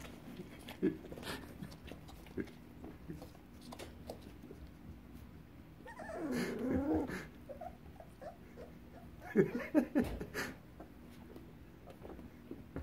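Young puppies vocalizing: a wavering whine about six seconds in, then a few short yelps around ten seconds, with light scuffling of the pups on the bedding between.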